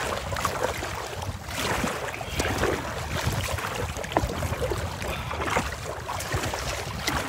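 Choppy lake water splashing and slapping against a plastic kayak's bow in irregular bursts, with wind rumbling on the microphone.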